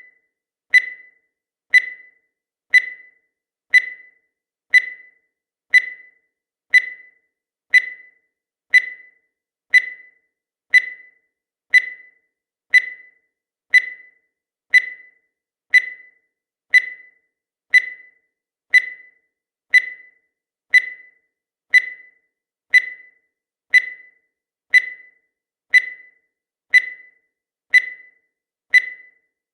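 Countdown timer sound effect: a short electronic beep once every second, each one striking sharply and fading away quickly, at an even pitch and level.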